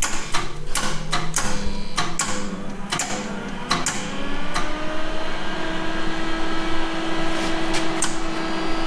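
MIG welder clicking as its torch trigger is pulled again and again, then its wire-feed motor running with a steady hum from about four and a half seconds in. The shielding-gas bottle is empty, so no gas comes through the torch.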